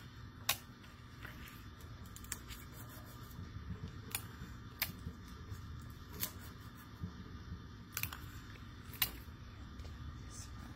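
Construction paper and sticky tape being handled at a tabletop: about ten sharp ticks and rustles spaced irregularly, over a low steady hum.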